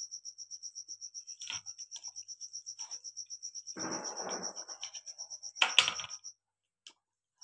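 Cricket chirping in a rapid, even pulse. Over it come soft handling sounds of raw chicken pieces being dropped onto wet marinade in a steel plate, then a sharp clatter just before 6 s. Near the end the sound cuts out abruptly.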